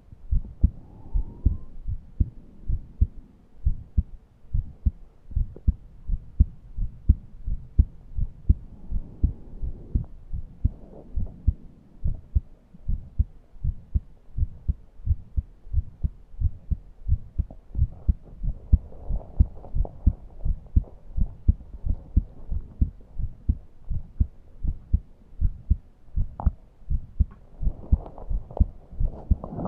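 A person's heart beating steadily in lub-dub pairs, heard close up at the chest. Slow, laboured breaths come through softly every nine seconds or so, with a short rising wheeze on the first one. The breathing is wheezy and shallow because the person cannot breathe deeply.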